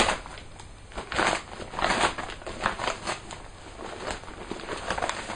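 Crinkly parcel packaging rustling and tearing in irregular bursts as a package is opened and unwrapped by hand. The loudest rip comes right at the start.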